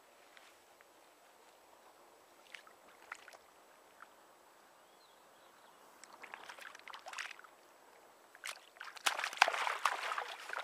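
Water dripping and sloshing as a carp is lowered by hand into shallow water, then a loud burst of splashing near the end as the released fish kicks free with its tail.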